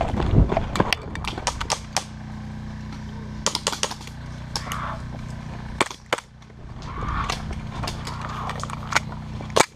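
Gas blowback airsoft pistols firing: sharp pops in irregular groups, some in quick runs and some single shots.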